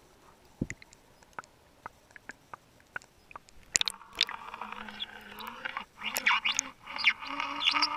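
Scattered sharp underwater clicks and crackles. About halfway through, the camera breaks the surface: water splashing and sloshing around the camera, with a low hum that slowly rises in pitch.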